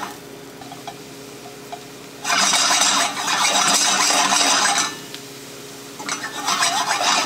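Diced carrots and onions frying in butter in a stainless steel pan on high heat, as they brown for a mirepoix. A spatula stirs and scrapes them through two loud spells, from about two seconds in to nearly five seconds and again from about six seconds; the pan sizzles more quietly in between.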